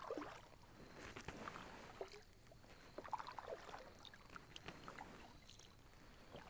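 Faint kayak paddling: a double-bladed paddle dipping into lake water on alternate sides, a light splash and swirl every second or so, with water dripping off the raised blade.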